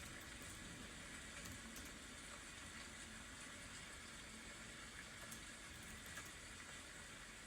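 Faint, steady rain: an even hiss with light scattered patter.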